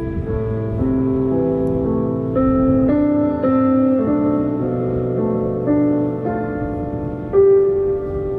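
Slow instrumental music: sustained notes, several sounding together, moving to a new pitch about every half second. The title names cello as the music.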